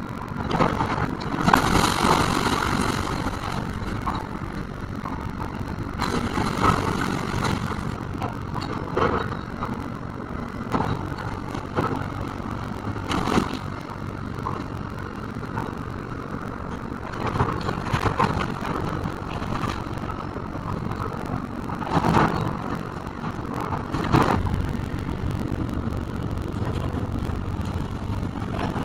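Kobelco hydraulic excavator's diesel engine running steadily while its bucket tears into a brick house. Repeated crashes of brick, timber and debris breaking and falling break through every few seconds.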